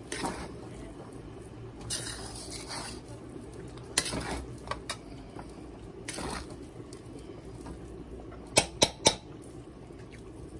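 Metal spatula scraping and knocking against a wok while fried rice is stirred and tossed. Scattered clanks come every second or two, then three sharp clanks in quick succession near the end, over a steady low background hum.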